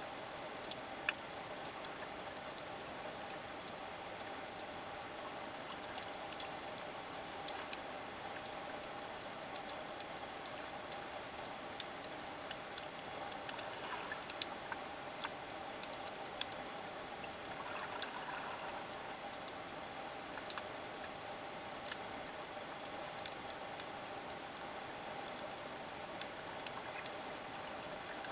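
Underwater ambience recorded with the camera submerged: a steady muffled hiss with a faint hum, broken by scattered sharp clicks and crackles.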